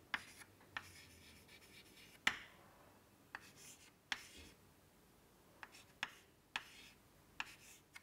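Chalk writing on a chalkboard, faint: light scratching strokes broken by about nine sharp taps as the chalk meets the board, irregularly spaced.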